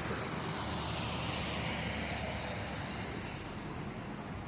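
A passing vehicle or aircraft: a steady rushing drone whose tone sweeps slowly up and then down as it goes by.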